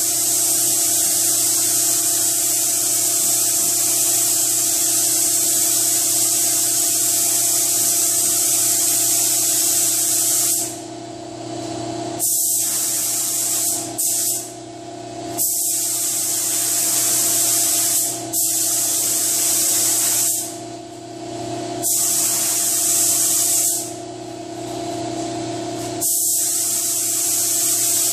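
Compressed-air paint spray gun hissing steadily. In the second half the trigger is released and pulled again several times, breaking the hiss for a second or two each time. A steady motor hum runs underneath throughout.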